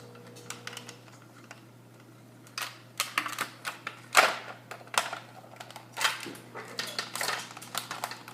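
Plastic shell and inner parts of a Nerf blaster being pried apart by hand: an irregular string of sharp plastic clicks and light knocks, starting a couple of seconds in.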